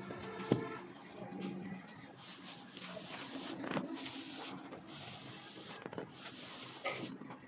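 Plasterer's straight edge scraping over fresh cement plaster on a wall, with a sharp knock about half a second in and a few lighter knocks later.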